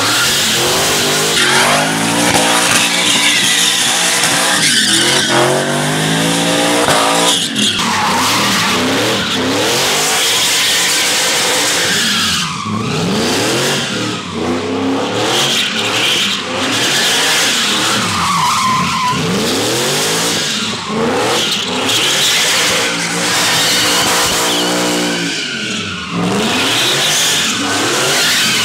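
Supercharged 5.0 Coyote V8 in a Ford pickup revving up and down over and over while it spins donuts, its rear tires squealing and skidding throughout.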